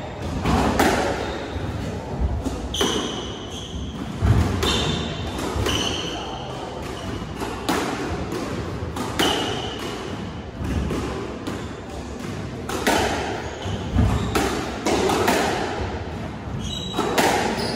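Squash rally: the ball cracking off rackets and hitting the court walls at irregular intervals of roughly a second, with sneakers squeaking on the wooden court floor.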